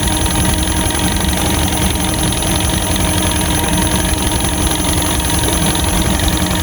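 Fishing boat's motor idling steadily with a low, even rumble.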